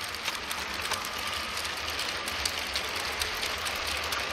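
LEGO City cargo train passing close on plastic LEGO track: a steady whir from the train motor and wheels, with many small rapid clicks as the wheels run over the rail joints.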